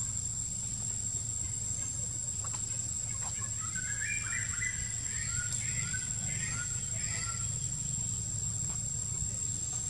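A bird chirping a run of short notes for a few seconds midway, over a steady high insect drone and a low background rumble.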